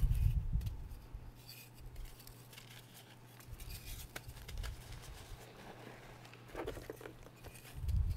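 Round reformed gym chalk discs pressed, snapped and crumbled by hand in a tub of loose chalk powder: soft low thuds near the start and end, scattered dry crackling between, and one sharper crunch a little before the end as a piece breaks.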